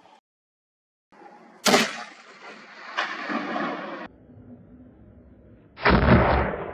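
Hunting rifle shots: a sharp crack about two seconds in, trailing off in a rolling echo with a fainter report a second later, then a heavier, duller boom near the end.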